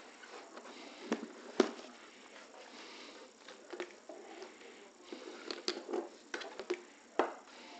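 Handling noise of hard plastic quadcopters being picked up, turned and set down on a table: scattered knocks, clicks and rustles, the sharpest knock about a second and a half in and a cluster of smaller ones near the end.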